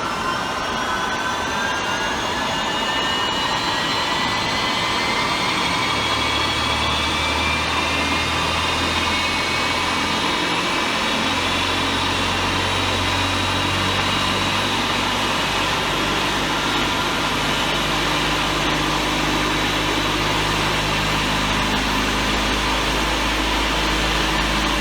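Jet aircraft engines spooling up for takeoff: a rising whine that climbs in pitch over the first ten seconds or so and then holds steady, over a continuous rushing roar, with a low hum joining about five seconds in.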